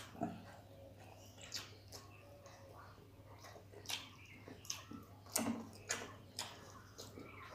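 Eating by hand: fingers squishing rice and fish curry on a steel plate and wet mouth sounds of chewing, heard as a string of soft, irregular clicks and squelches over a low steady hum.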